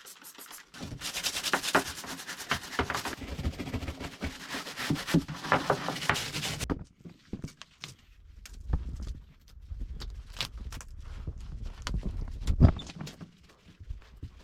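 A bathtub being cleaned: a few seconds of dense scrubbing and rubbing strokes, which stop abruptly about seven seconds in, then quieter, irregular knocks and handling sounds.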